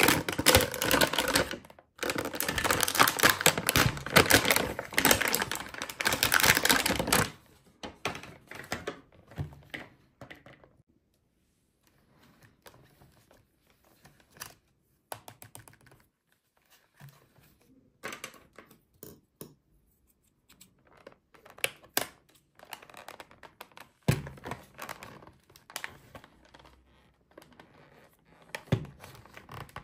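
Clear plastic wrap around a toy package crinkling and crackling loudly as hands grip and pull at it for about seven seconds, then quieter scattered crinkles and light taps on the plastic.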